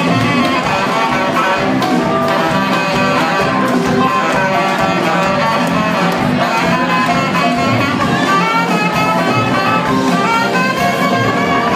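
Live blues-rock band playing, with harmonica lines over guitar, bass and drums.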